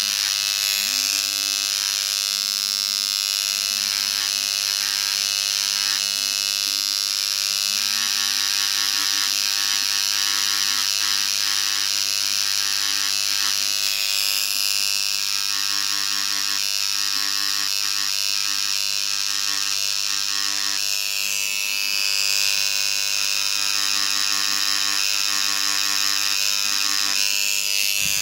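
Handheld electric engraving pen buzzing steadily as its tip engraves into polished black granite, with a bright scratchy hiss from the point on the stone.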